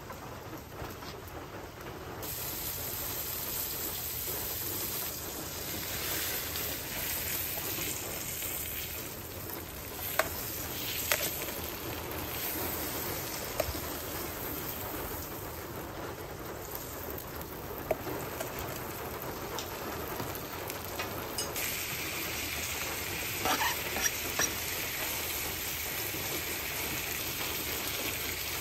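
Steak frying in oil in a skillet over a wood fire: a steady sizzle that grows louder about two seconds in, with scattered sharp pops and crackles.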